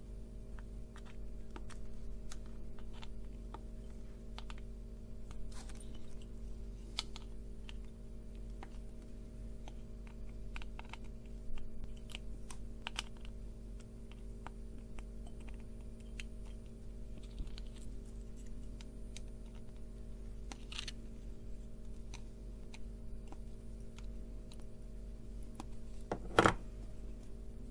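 Scattered small clicks and taps of electronic components and hand tools being handled at a workbench, with one sharper snap near the end, over a steady low hum.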